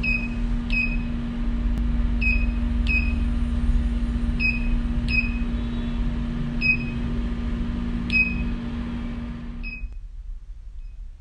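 Thermage radiofrequency skin-tightening machine beeping as its handpiece fires pulse after pulse across the face: about nine short high beeps, often in pairs, over a steady low hum that stops near the end.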